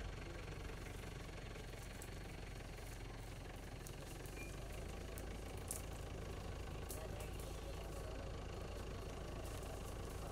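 An engine idling steadily, a low even hum, with a few faint clicks around the middle.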